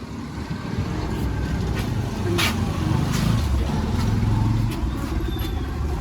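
A motor vehicle's engine running close by, growing louder over the first two seconds and then holding steady, with a few brief clicks or hisses about two seconds in.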